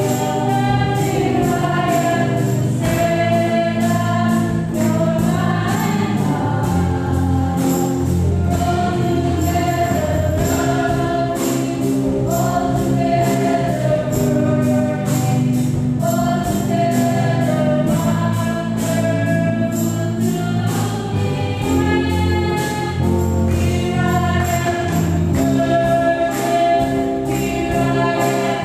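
Live gospel worship music: a woman sings a slow melody with long held notes into a microphone, over a band of drum kit, guitar and keyboard. The drums keep a steady beat on the cymbals.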